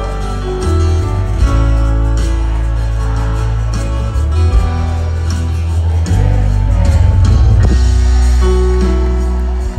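Live gospel worship music played loud through a stage PA, with heavy sustained bass and held chords; a singer's voice comes through at times.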